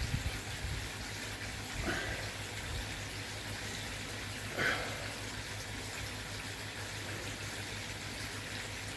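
Koi pond water rushing and bubbling steadily from the pond's air curtain, over a steady low hum, with two brief knocks about two and four and a half seconds in.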